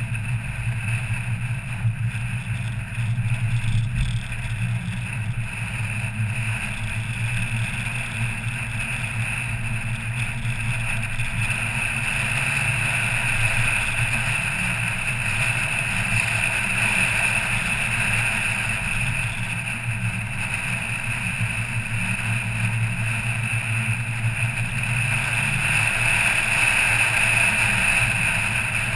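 A car driving at steady speed: an engine drone with steady road and tyre noise, getting a little louder in the second half.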